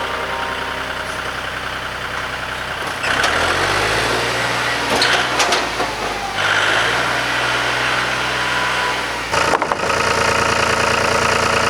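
An engine running, idling and then speeding up about three seconds in, with a short burst of knocks near the end before it settles back to a steady run.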